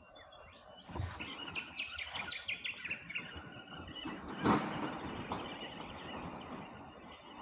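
Birds chirping over open-air river ambience, with a sudden knock about a second in and a louder sudden thump about four and a half seconds in.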